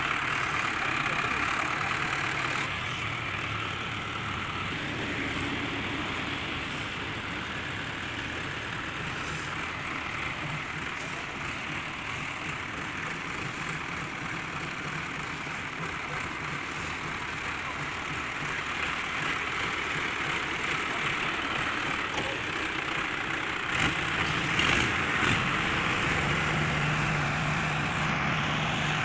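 Mahindra Arjun 555 tractors' diesel engines running steadily. A few knocks come about three quarters of the way in, and then one engine's note grows louder and stronger as it takes up the load.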